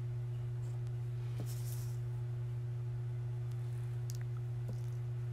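A steady low hum with a fainter higher tone above it, unchanging throughout, with a few faint light clicks from small objects being handled on the table.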